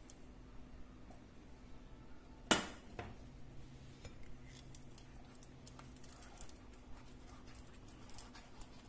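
Kitchenware handling: a sharp clunk about two and a half seconds in and a lighter one half a second later, then faint scattered ticks and scraping as a spatula works a custard mixture through a metal mesh strainer over a glass bowl.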